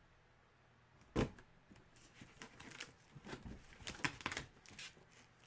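Hands unwrapping and handling a packaged collectible. There is one sharp click about a second in, followed by a run of short, scattered clicks and rustles.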